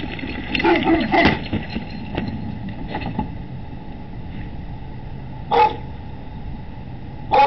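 A dog barking: a quick run of barks about a second in, then single barks later. Under them is the steady hiss of a security camera's microphone.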